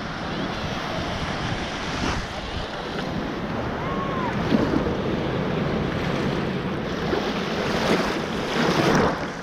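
Shallow surf breaking and washing in and out at the water's edge, heard close up from the waterline, with wind buffeting the microphone. A little louder near the end as a wave washes over the camera.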